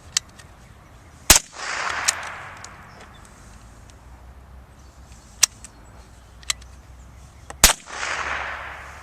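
Two shots from a single-shot bolt-action Crickett .22 rifle, about six seconds apart, each a sharp crack followed by a short rushing tail. Small clicks come in between while the bolt is worked to reload for the next shot.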